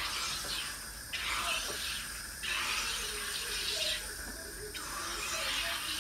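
SodaStream home soda maker carbonating a bottle of water: carbon dioxide hisses into the bottle in about four pushes of a second or so each, with the water bubbling and gurgling.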